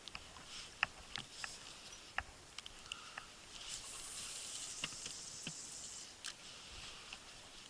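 Faint water sounds around a small boat: scattered drips and light taps, with a soft hiss of moving water swelling in the middle.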